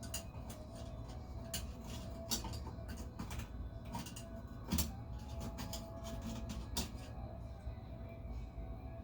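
Faucet parts and tools being handled during plumbing work: scattered light clicks and knocks, the loudest a little before halfway, over a low steady hum.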